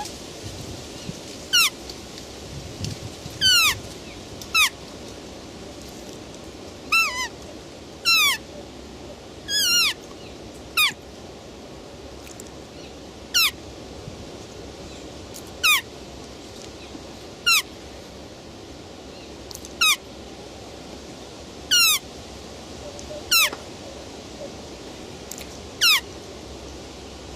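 Roe deer giving a string of short, high-pitched calls, each one sliding steeply down in pitch, repeated every one to two seconds over a steady background hiss.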